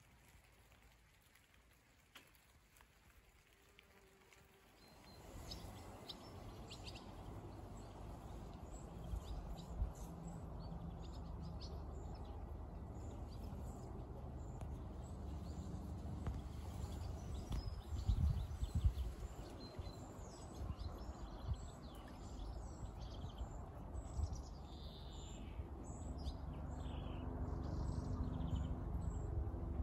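Short, high bird chirps and calls scattered over an outdoor low rumble of wind on the microphone, which sets in a few seconds in after a quiet start. Near the end several calls come in quick succession, some falling in pitch.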